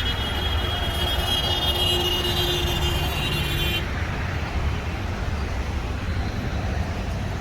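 Steady street traffic noise with a continuous rumble and hiss, and a high-pitched steady tone over it that cuts off about four seconds in.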